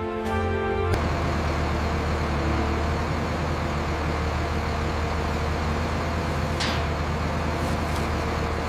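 Heavy vehicle engine, likely a bulldozer's, running steadily: a low hum under a broad noisy hiss that starts abruptly about a second in, as music cuts off.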